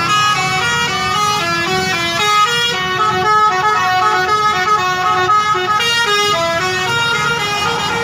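Indonesian bus telolet horn playing a tune: several horn tones sounding together, stepping quickly from note to note.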